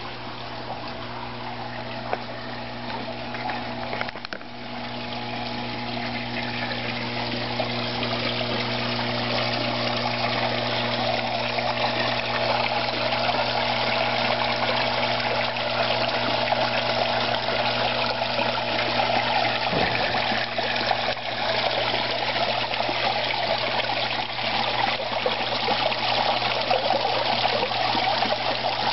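Water trickling and running in a backyard koi pond, over a steady low hum; the water grows louder over the first several seconds.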